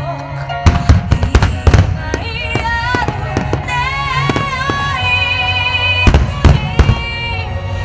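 Fireworks shells bursting over music: a rapid run of sharp bangs about a second in, then another cluster of bangs near the end, with the melody carrying on underneath.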